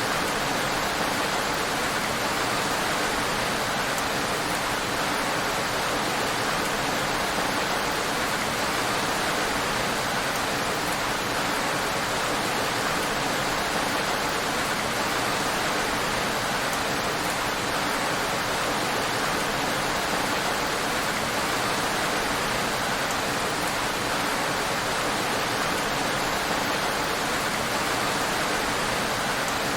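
Heavy rain falling steadily on a road: an even, unbroken hiss of rain with no let-up or change.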